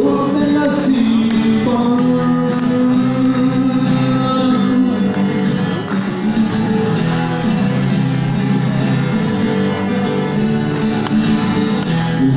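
A man singing a Punjabi song live with long held notes, accompanying himself on a strummed acoustic guitar.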